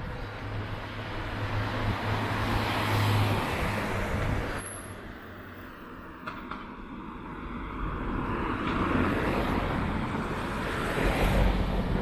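Cars driving past on the road close by, heard as tyre and engine noise that swells and fades twice: the first pass peaks about three seconds in, the second builds up near the end.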